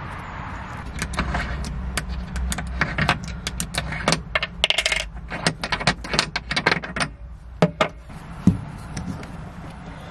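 Quick sharp metallic clicks and clinks, bunched together with a few single knocks near the end: a narrowboat's brass deck water-filler cap being unscrewed and a hose connector being fitted into the filler. A low steady rumble runs underneath.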